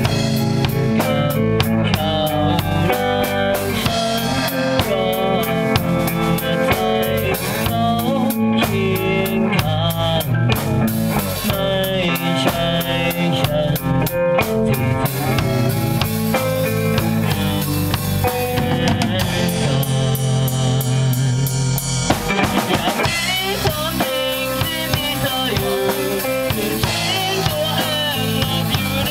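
A band playing a rock song: a full drum kit with bass and guitar.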